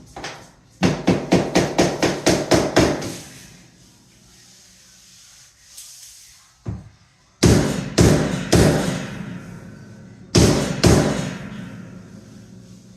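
Hammer blows tapping vinyl plank flooring into place. There is a quick run of about ten strikes at roughly four a second, then a few slower, heavier blows in two small groups, each leaving a short ringing tail.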